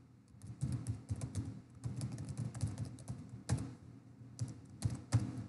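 Typing on a computer keyboard: an irregular run of key clicks, with a few louder keystrokes.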